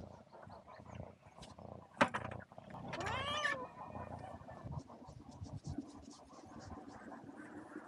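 A cat meows once about three seconds in: a single call that rises and falls in pitch, about half a second long. Around it are close rustling and scuffing, with a sharp knock about two seconds in.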